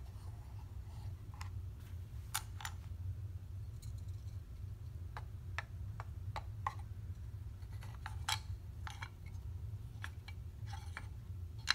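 Small wooden animal figures knocking and clicking against a wooden ark and its ramp as they are set in place. There are about fifteen light, irregular clicks, with the sharpest one near the end, over a steady low hum.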